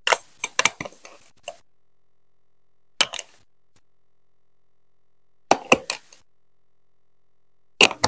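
Plastic Lego Duplo blocks and a curved marble-run track piece clicking and knocking as they are set down and pressed onto the studs, in four short bursts of sharp clicks a couple of seconds apart.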